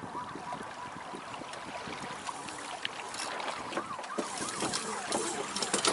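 Water rushing and splashing along the hull of a Beneteau First 20 sailboat under way, with wind on the microphone and a faint squeak repeating a few times a second. The splashing grows louder near the end.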